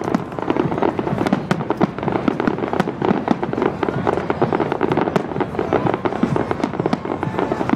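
Aerial fireworks display: a dense, continuous barrage of bangs and crackling shell bursts, many a second, with no pause.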